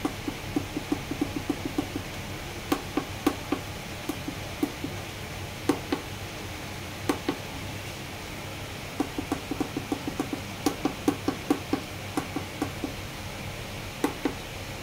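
Membrane keypad buttons on a digital weighing scale clicking under a fingertip as a set-point value is keyed in digit by digit. There are quick runs of about six presses a second near the start and again from about nine seconds in, with single or paired presses between them.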